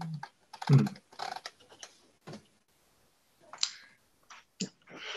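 Irregular short clicks and brief noises picked up over a video call, typing-like, with a short snatch of a voice about three-quarters of a second in.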